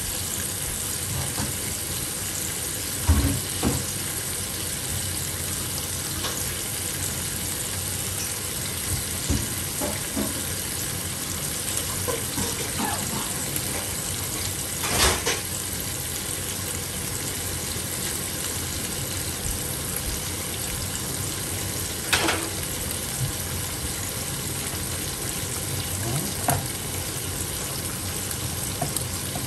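Sea bass fillets frying in hot oil in a non-stick pan, a steady sizzle broken by a few sharp pops and clicks, the clearest about three, fifteen and twenty-two seconds in.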